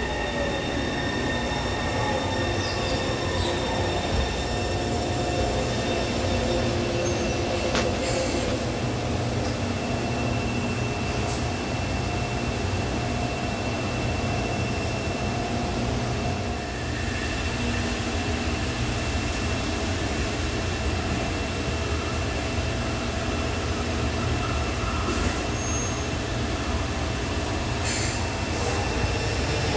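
Taipei Metro high-capacity electric train running, its motor whine falling in pitch over the first few seconds as it brakes into a station. A steady rumble follows, with a high steady whine through most of the rest, and the whine starts to rise again at the very end.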